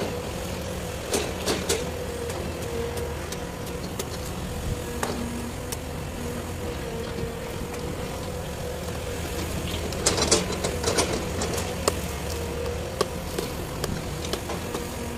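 Hydraulic excavator's diesel engine running steadily with a wavering whine, while the arm swings. Sharp metal clanks come in clusters about a second in and again around ten seconds in.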